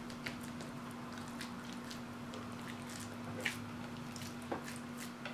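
Bare hands patting and pressing a raw ground-beef meatloaf mixture into a firm loaf: faint, scattered soft squishes and small clicks, over a steady low hum.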